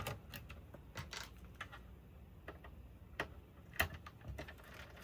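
Irregular light clicks and ticks of a screwdriver working a small screw out of the oscilloscope's case, with one sharper click a little before the end.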